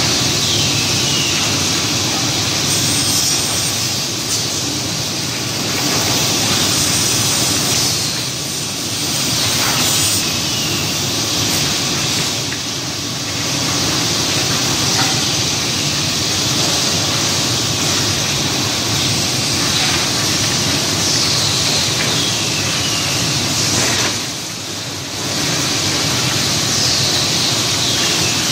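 High-frequency panel-gluing machine and its automatic feeding table running: a steady, loud mechanical drone with a hiss, easing off briefly a few times.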